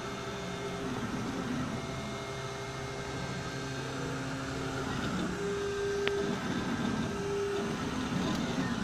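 Large-format MINGDA MD-756 3D printer running: its stepper motors hum in steady tones that jump to new pitches every second or so as the axes change speed, over a steady hiss. A single sharp click about six seconds in.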